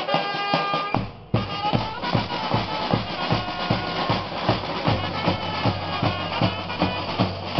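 Marching brass band playing with a big bass drum: a held brass chord breaks off about a second in, then the band comes back in with a steady, quick drum beat under the tune.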